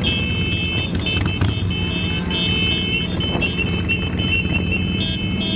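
Harley-Davidson Sportster 883 engine running steadily while riding along in a large group of motorcycles, with road and wind noise. Short, high-pitched tones sound on and off over it.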